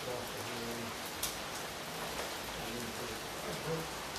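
Steady rain falling, an even hiss, with faint voices in the background and a small sharp click about a second in.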